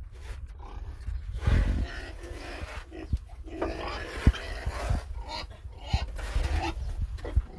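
Pigs grunting, in irregular short calls, with scattered low thumps.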